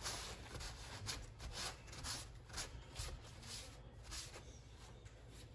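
A part of a mini lathe being wiped clean by hand: a run of quick, irregular rubbing strokes, faint, tapering off near the end.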